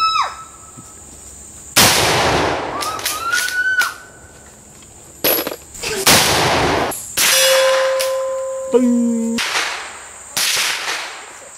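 Gunshots on an outdoor firing range: about six single shots a second or more apart, each trailing off in a long echo. A steady ringing tone rises briefly after one shot in the middle.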